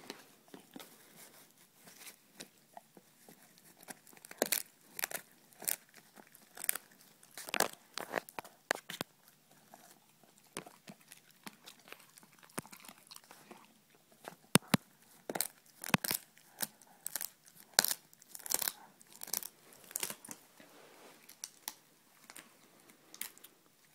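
German shepherd chewing a barbecued pig ear, with irregular crunches through the chewing.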